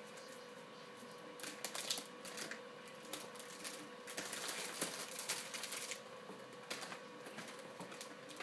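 Rustling and scattered light clicks and knocks of someone rummaging through things, coming in short spells with quieter gaps between them.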